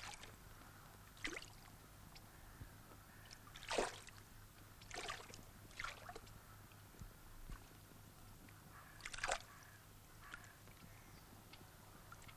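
Separate splashes and sloshes in shallow water, irregularly spaced a second or more apart, the strongest about four seconds in and another near nine seconds.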